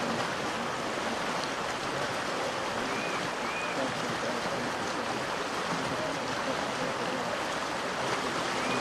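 Creek rapids: the steady rush of whitewater.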